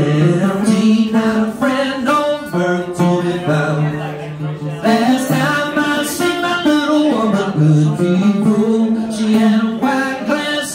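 Live string band music: a resonator guitar and other plucked strings playing while a man sings long, held notes.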